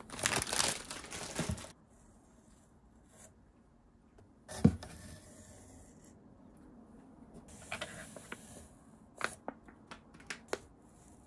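Plastic food packaging crinkling as packets are handled in a cardboard box, then a single dull thump about halfway through and a few light taps and rustles near the end.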